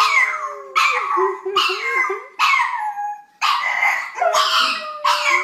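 Pug howling in a run of short, wavering howls, about six or seven in a row, with a woman howling along underneath in a steadier, lower tone.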